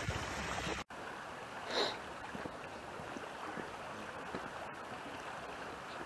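Steady rushing of a flood-swollen creek flowing past a culvert pipe. It drops out for an instant about a second in, and faint footsteps on gravel tick over it.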